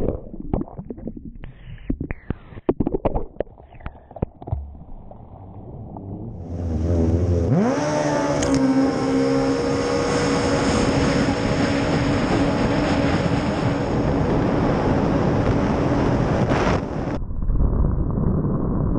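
Racing jet ski: a few seconds of splashing and knocks against the camera, then the engine winds up fast, its pitch rising, and holds a steady high-revving whine over hissing spray. Near the end the sound drops to a lower, duller rumble.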